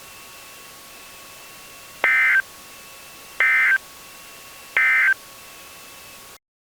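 Three short bursts of EAS (SAME) digital data tones, about a second and a half apart: the end-of-message code that closes an emergency alert broadcast. Under them runs a steady radio hiss with faint hum tones, which cuts off suddenly near the end.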